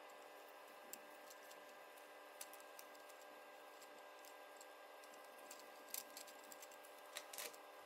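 Near silence over a faint steady hum, broken by a few faint light clicks and ticks of 3D-printed plastic fidget rings being turned in the hands, the loudest about six seconds in and near the end.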